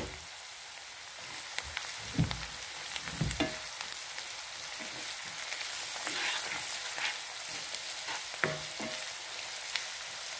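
Onions, green chilies and curry leaves sizzling steadily in hot oil in a non-stick frying pan, stirred with a wooden spoon that knocks against the pan now and then.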